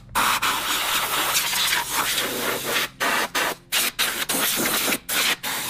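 Compressed-air blow gun hissing as it blasts dirt off a lawnmower engine. The blast is broken by several brief releases of the trigger in the second half.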